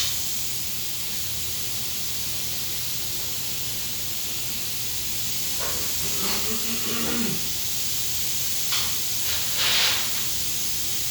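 Steady hiss with a low hum underneath, broken by a brief faint voice about six seconds in and two short hissy bursts near the end.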